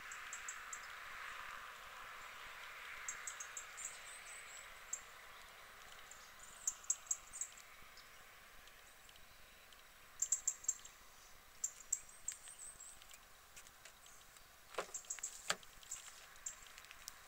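Faint, high twittering of small birds in short quick bursts over a quiet hiss, with two quick downward whistles near the end.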